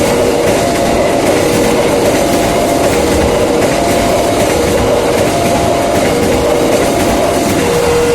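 A train passing over a level crossing with a loud rumble and wheel clatter, while the crossing's warning siren alternates between a low and a high tone, each held for about 0.7 s. The train noise drops away near the end, leaving the two-tone siren.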